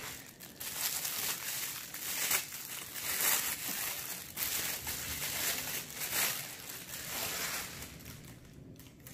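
Clear plastic bag crinkling and rustling in uneven surges as it is worked off a camera body by hand, dying down near the end.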